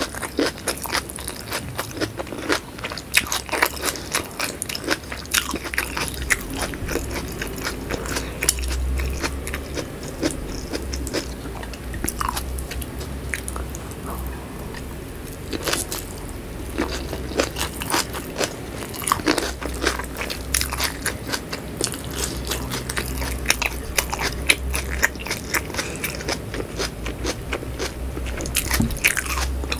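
Close-miked eating: steady chewing of whole shallots in chili sambal, with many crisp crunching clicks.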